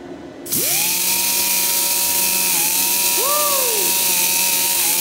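Air-powered rotary tool with a wire brush wheel starting up about half a second in: a loud hiss of exhaust air and a whine that rises quickly to a steady pitch. It runs for about four seconds as the brush works into upholstery foam, and the pitch dips briefly partway through.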